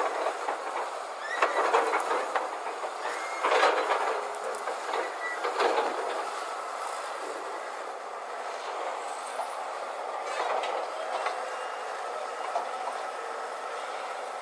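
Loaded tipper truck crawling over uneven sand, its engine running under the clanking and squeaking of the steel body and chassis. The rattling comes in loud bursts several times in the first half, then settles.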